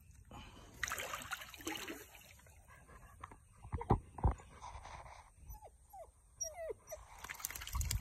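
Retriever puppy whimpering, with a few short whines about two-thirds of the way in. A couple of dull thumps sound about four seconds in.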